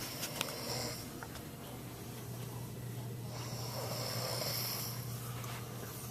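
Snoring while asleep: a short snore near the start, then a longer one of about a second and a half in the middle, over a steady low hum.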